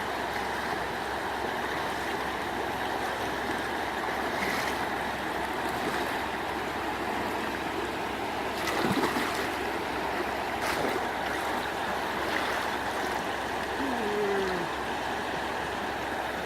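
Steady rushing of flowing water, with a couple of brief sharper sounds about midway.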